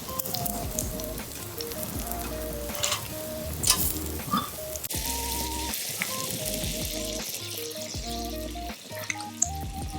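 Food sizzling on a grill over a campfire, with scattered sharp crackles, under light background music with a simple stepping melody.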